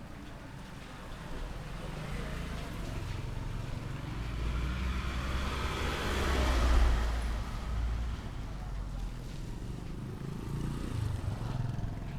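A motor vehicle passing close by on a street: its engine and tyre noise grow louder to a peak about seven seconds in, then fade away.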